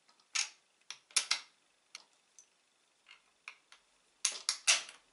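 Small bolts clicking and tapping against a metal tube as they are pushed through its holes: a few separate sharp clicks, then a quick cluster of them near the end.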